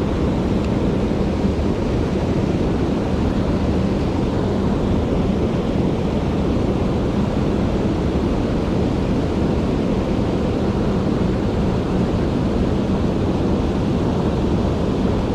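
Rushing mountain stream running high after rain: a steady, loud rush of water.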